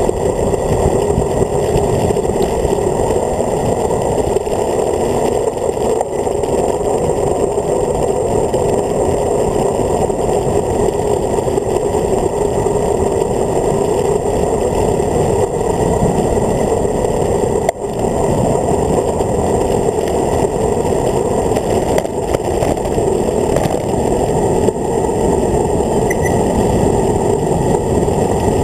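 Wind rushing over the microphone of a handlebar-mounted camera on a road bike descending at speed, with tyre noise on tarmac mixed in: a loud, steady, muffled rush.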